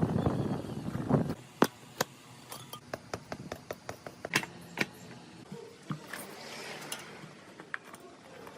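Metal parts and hand tools being handled: a short burst of louder rattling and handling noise at the start, then a run of sharp, irregular metallic clicks and knocks.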